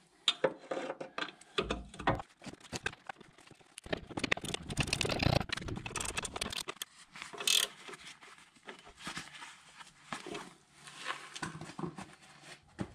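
A spanner clicking and clattering in short runs as the nut on a new anti-roll bar drop link is tightened, with light metal-on-metal clinks and scrapes from the tool against the suspension.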